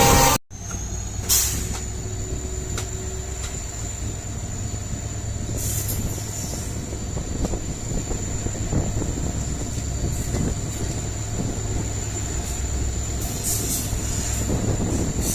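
EMD WDP4D diesel-electric locomotive's engine humming steadily with the train under way, heard from the coaches behind it, with a few scattered clicks. The sound cuts out briefly just after the start.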